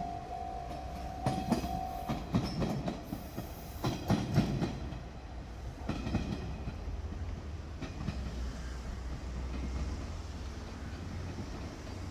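Diesel railcar rolling past, its wheels clicking and knocking over rail joints for the first few seconds, then a steady low engine and running rumble. A steady high tone sounds at the start and stops about two seconds in.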